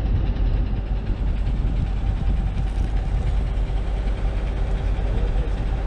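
Military vehicle's engine running steadily: a heavy low rumble with a constant hum over it.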